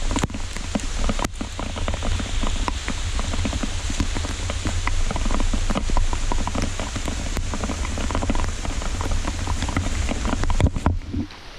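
Heavy rain falling, a dense hiss full of small drop ticks over a steady low rumble. It drops away suddenly near the end.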